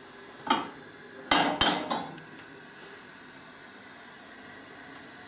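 A knife knocking against a wooden chopping board while butter is cut into pieces: one soft knock, then two sharp knocks about a third of a second apart with a short ring after them.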